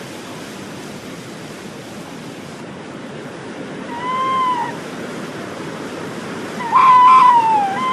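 Tawny owls calling close by over the steady rush of storm wind: a short arched call about four seconds in and a longer, wavering call near the end, both with a screeching quality.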